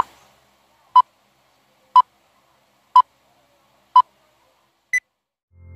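Film-leader countdown beeps: five short, identical beeps one second apart, one for each number, then a sixth, higher-pitched beep a second later that marks the end of the count.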